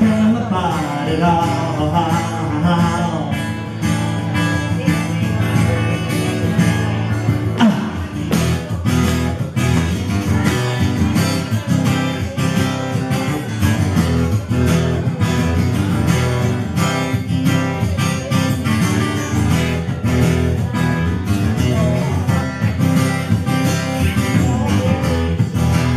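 Steel-string acoustic guitar strummed in a steady rhythm, an instrumental passage of a folk-style song played live.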